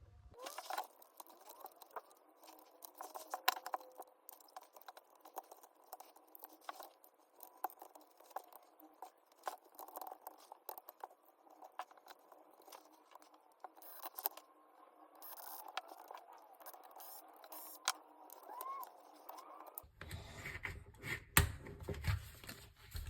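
Faint, irregular clicking, tapping and scraping of small plastic and metal parts being handled as a bushing is refitted to an RC car's wheel hub.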